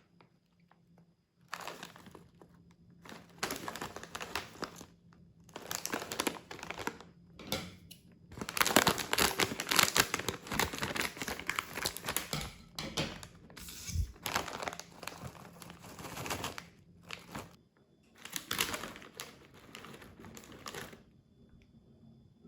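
Snack wrapper being handled and crinkled in several bouts, loudest in the middle, with bits of tearing-like rustle.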